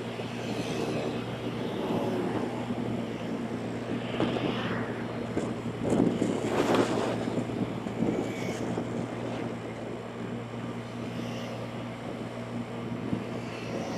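Motorbike engine running at a steady pitch while riding, with wind and road noise over it, swelling loudest about six to seven seconds in.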